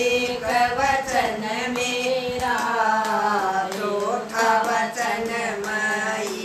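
Women singing a Haryanvi devotional folk song (bhajan), keeping time with hand claps, over a steady held low drone.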